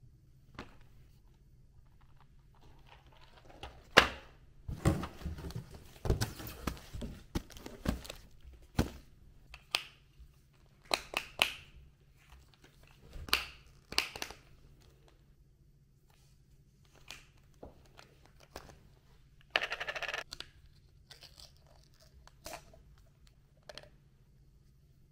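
Objects being handled indoors: scattered sharp clicks and knocks, a busy stretch of handling noise early on, and a short rustling or tearing sound about twenty seconds in, over a low steady hum.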